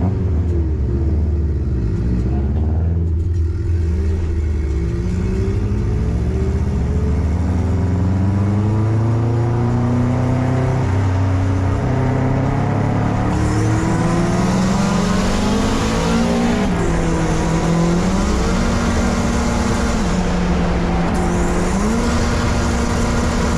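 Car engine running and revving, its pitch rising and falling with several sudden jumps, growing brighter about halfway through.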